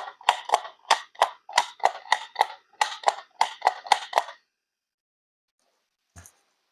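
A quick, even run of short, sharp clicking taps, about three a second, stopping after about four seconds, then one faint click near the end.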